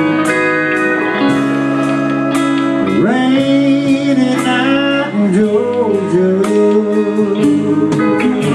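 A band playing an instrumental passage of a slow soul ballad, with a lead guitar playing sliding, bending notes over a steady beat.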